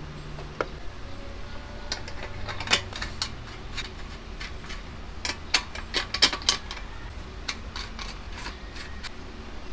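Irregular small clicks and taps of plastic and metal as hands handle and fit the fuel pump and filter assembly into a scooter's fuel tank, with a tight cluster of sharper clicks about halfway through.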